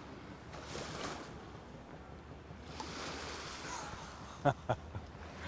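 Steady wash of surf and wind. Two sharp knocks come in quick succession near the end.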